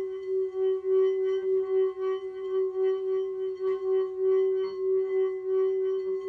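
Large Tibetan singing bowl sung by circling a wooden stick around its rim: one steady ringing tone with fainter higher overtones, pulsing in loudness a few times a second.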